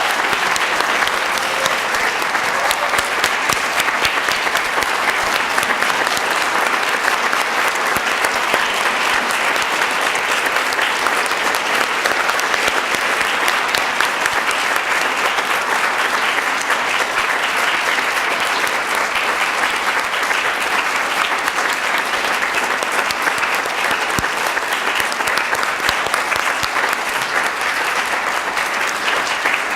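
Congregation applauding, sustained and steady: a long ovation following the new dean's installation vows.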